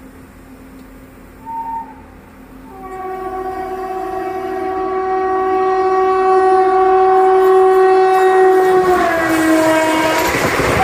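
WAP-4 electric locomotive's horn: a brief toot, then one long steady blast as the locomotive approaches. Its pitch drops as the locomotive passes close by near the end, and the rush and rumble of the passing train takes over.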